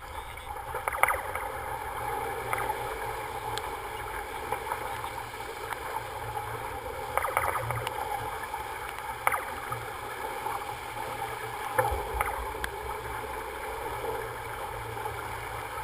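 Sailing yacht under way: a steady rush of water and wind, with a few sharp knocks or slaps, about a second in, twice a few seconds before the middle, and once more later on.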